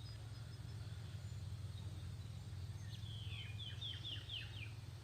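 A small bird sings a quick run of about eight falling chirps about three seconds in, over a steady low rumble.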